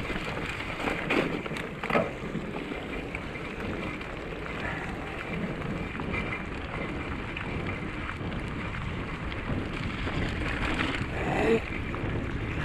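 Bicycle tyres running over a wet, slushy track, with wind buffeting the handlebar microphone and a few knocks as the bike jolts over rough ground. About eleven seconds in there is a louder swell of noise as the bike goes through a deep puddle.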